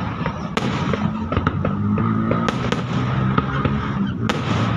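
Aerial fireworks display: a continuous rumble of bursting shells with sharp bangs and cracks scattered through it, one strong bang near the end.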